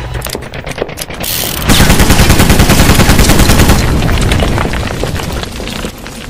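Machine-gun fire sound effect: a rapid, sustained burst that comes in loudest about two seconds in and tapers off over the following seconds, over a heavy bass boom.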